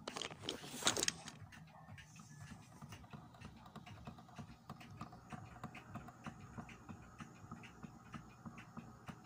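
Idler-drive record player running with its platter turning: a faint low rumble with a repeating tap-tap-tap, thump-thump-thump from a minor flat spot on the rubber idler wheel. Pendulum clocks tick alongside, and a brief rustle sounds in the first second and a half.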